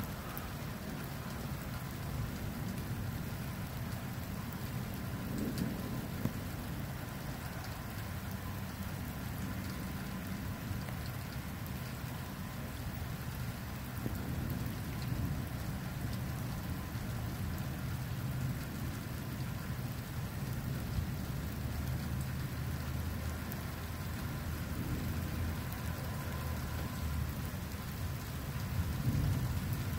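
Steady rain falling in a thunderstorm, under a low rolling rumble of thunder that swells about five seconds in and again near the end.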